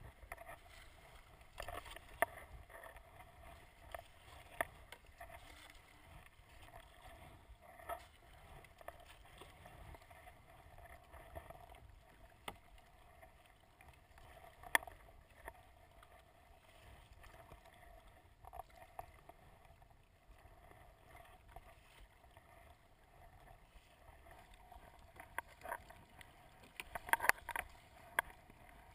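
Kayak paddle strokes in choppy sea, with water splashing and sloshing against a plastic sit-on-top kayak's hull. Sharp slaps come every few seconds, several in quick succession near the end.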